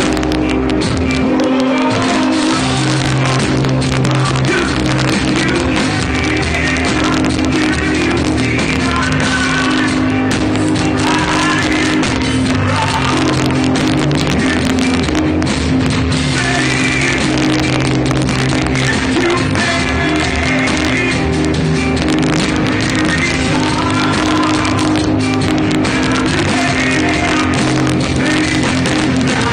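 Live rock band playing loud through a club PA, with a singer's voice over guitar, bass and drums, picked up from among the crowd.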